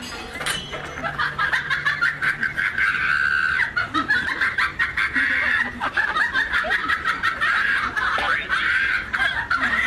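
Sustained laughter, a steady unbroken run of quick ha-ha pulses.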